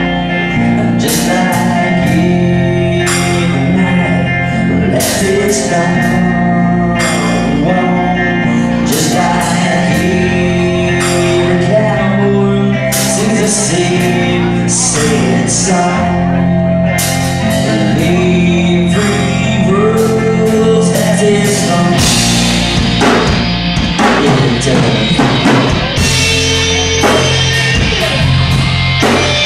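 Live rock band playing: a singer's voice over drums, bass and guitar. About two-thirds of the way in, the singing thins out and the cymbals and guitar grow denser.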